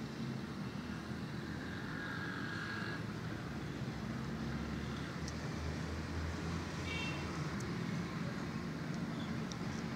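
Steady low rumble of distant road traffic, with a brief faint high tone about seven seconds in and a few faint clicks.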